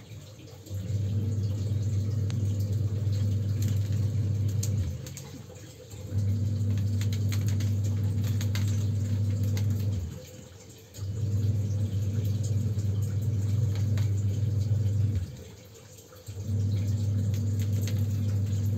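A loud, steady low electrical hum that cuts out for about a second roughly every five seconds, then comes straight back.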